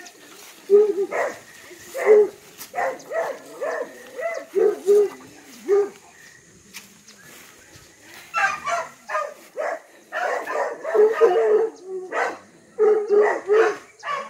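A dog barking in short, repeated barks. The barking stops for about two seconds midway, then comes back faster and more densely.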